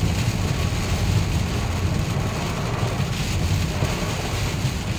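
Steady low rumble of hurricane wind buffeting the microphone, with an even hiss of heavy rain.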